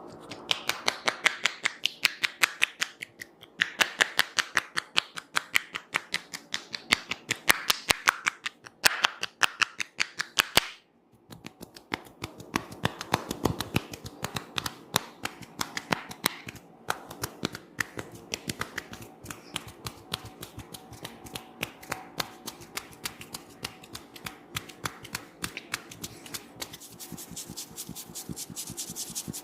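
Hands tapping and clicking on a head during an oil head massage: a fast run of sharp taps and cracks, several a second, with a short pause about eleven seconds in.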